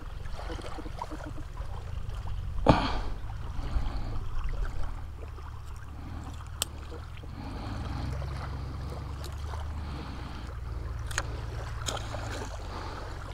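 Steady low rumble of wind buffeting the microphone, with one sharp click about two and a half seconds in. A few lighter clicks follow, and near the end a released gafftopsail catfish makes a small splash in the shallows.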